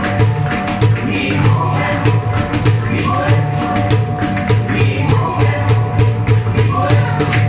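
Live electronic music: a synthesizer with a pulsing bass and held tones, over a steady rhythm of cajón hand-drum hits.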